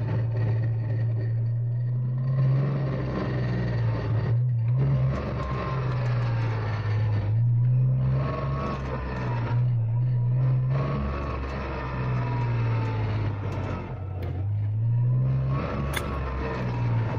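1999 Porsche Boxster driving through turns under throttle, its engine pitch rising and falling repeatedly, with a grinding noise from the rear drivetrain that comes only when cornering under load; the cause is unknown, with the differential, an axle or a wheel bearing suspected.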